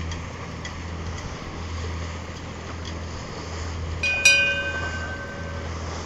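Petter-Westerbeke marine diesel idling in neutral, a steady low throb. About four seconds in, a bell is struck once and rings clearly for about a second and a half.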